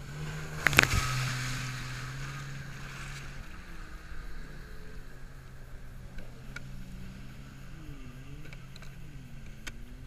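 Jet ski engine running steadily at speed, its pitch gliding up and down at times. About a second in comes a loud splash, followed by a couple of seconds of hissing spray.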